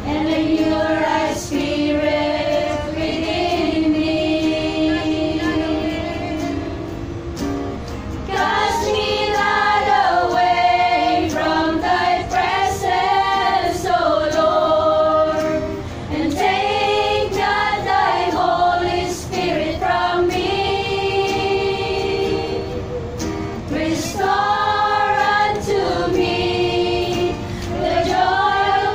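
A small group of women singing a worship song together, accompanied by an acoustic guitar.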